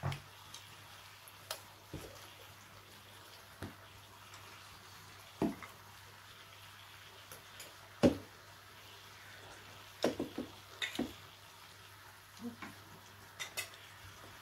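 Chopsticks and utensils clinking and tapping against bowls, plates and the hotpot as people eat: scattered sharp clicks every second or two, the loudest about eight seconds in and a quick run of them around ten to eleven seconds.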